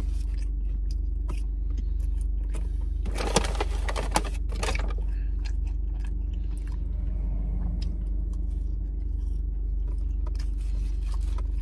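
A mouthful of burger being chewed close to the microphone, with crinkles of its paper wrapper, heaviest a few seconds in, over a steady low hum from the car.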